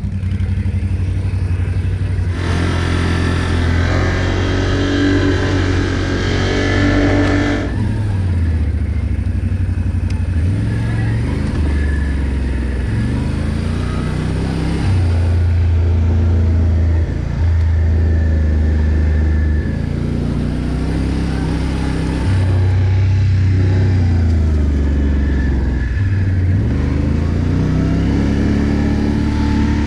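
ATV engine running under way, its pitch rising and falling again and again as the throttle and speed change. A louder, hissier stretch lies over it from about two to eight seconds in.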